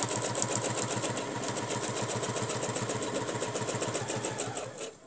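Domestic sewing machine stitching at a fast, even rate, then slowing and stopping near the end.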